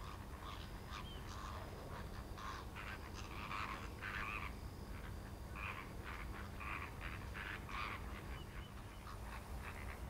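A flock of greater flamingos calling: many short calls overlapping in a continuous chatter, over a steady low rumble.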